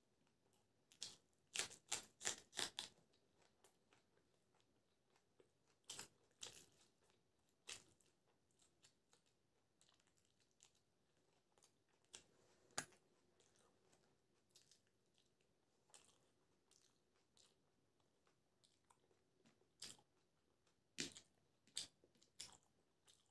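Close-up mouth sounds of a person eating biryani and raw green chillies: crisp crunching and chewing. A quick run of crunches comes about a second in, then single crunches and smacks are scattered through, and another run comes near the end.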